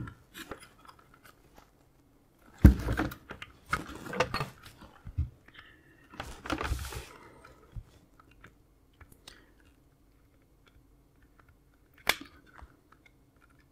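Hands handling and turning over a small circuit board with its mains cable on a cutting mat: bursts of rustling, crackling and light knocks, then a quiet stretch while a soldering iron is held to a joint, and one sharp click near the end.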